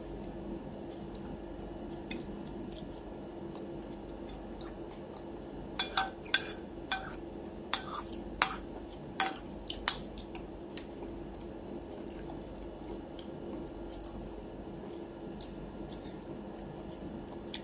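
Metal cutlery clinking and scraping on a dinner plate: a quick run of about nine sharp clinks between about six and ten seconds in, over a steady low hum.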